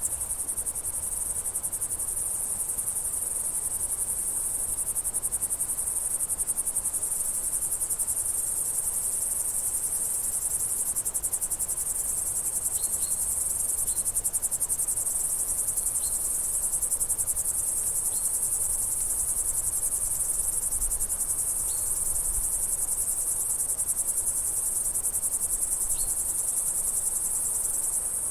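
Steady chorus of crickets trilling continuously, high-pitched and rapidly pulsing, with a few faint short chirps now and then.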